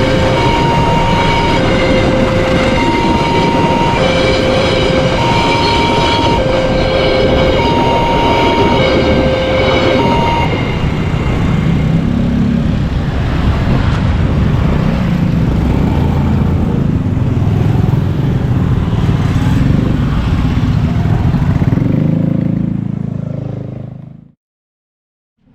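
A train passing close by, a loud steady rush of wheels and running gear. Over it a level-crossing warning siren sounds an alternating two-tone high-low signal, which stops about ten seconds in. The train noise carries on and then fades out shortly before the end.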